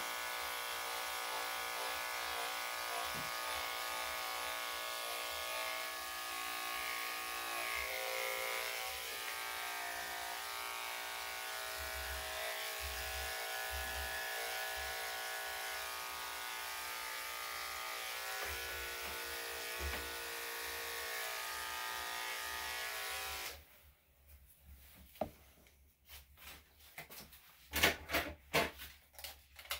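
Electric dog grooming clippers with a #5 blade running with a steady hum as they shave a matted coat. The motor cuts off abruptly about 23 seconds in, followed by a run of sharp clicks and knocks.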